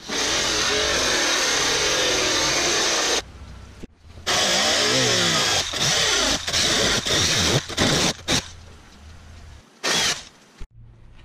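Cutoff wheel grinding through a Jeep Wrangler's hood sheet metal to cut out the center opening: one steady cut of about three seconds, a short pause, then a string of shorter cuts starting and stopping, and one last brief burst near the end.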